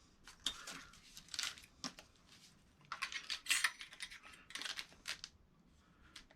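Small metal chain links and clips being handled and fitted, giving irregular light clicks and short rattles.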